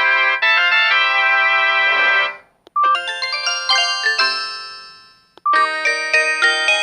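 Samsung SGH-M620 mobile phone playing polyphonic ringtone melodies one after another. A melody stops a little over two seconds in; a short beep then starts a new one, which fades out and is followed by a second short beep and another ringtone.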